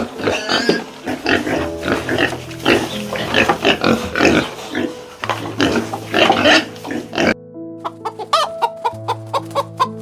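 An animal's noisy, irregular calls over steady background music; a little past seven seconds in it cuts abruptly to a fast, regular run of short calls, about four a second.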